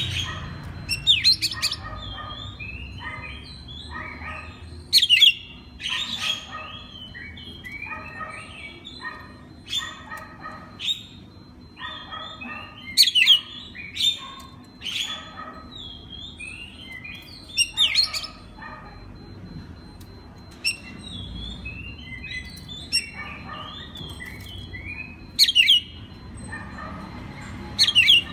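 Oriental magpie-robin (kacer) singing: a continuous, varied run of short whistled and chattering notes, broken every few seconds by loud, sharp downward-sweeping whistles.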